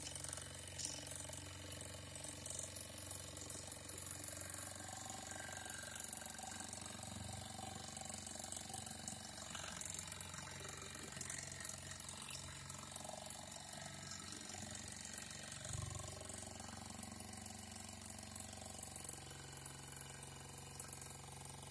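Mamod toy steam traction engine under steam, giving a steady, quiet hiss as it runs.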